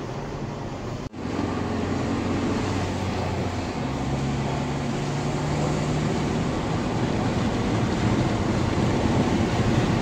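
Car interior noise while driving: a steady rumble of engine and tyres on the road, with a low engine hum. The sound drops out for an instant about a second in.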